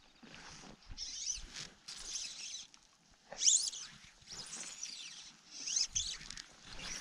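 Fly line and rod swishing through the air on repeated false casts. Short high swishes with quick sweeping pitch come about once a second, and one about halfway through is clearly the loudest.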